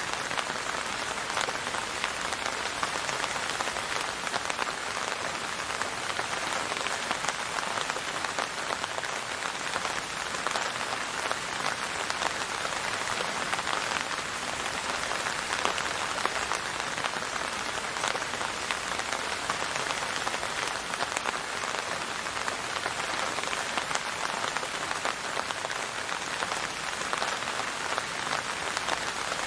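Steady rain falling on a surface, an even hiss of many fine drops with no letup.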